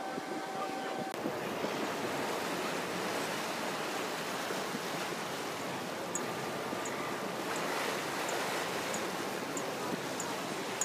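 Harbour ferry's propeller wash churning in its wake: a steady rushing of water, mixed with wind on the microphone. A faint steady hum runs for the first second, until a cut.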